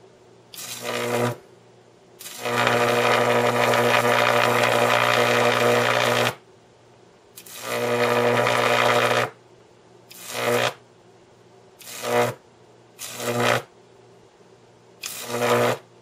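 High-voltage arc from a microwave oven transformer run without capacitors: a loud electrical buzz with crackle, struck seven times. The longest arc lasts about four seconds, the others one second or less, and each cuts off suddenly.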